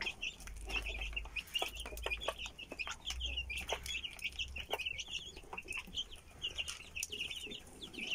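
A brood of young chicks peeping rapidly and continuously, many short high chirps overlapping, around their mother hen.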